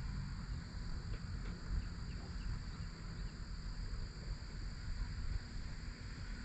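Quiet outdoor background: a low steady rumble with a few faint, short chirps scattered through it.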